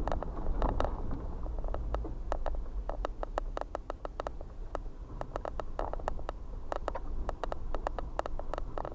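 Tyres rolling slowly over a loose gravel and dirt lane, stones crackling and popping with many irregular sharp clicks, over a low steady rumble of the vehicle, heard from inside the cab.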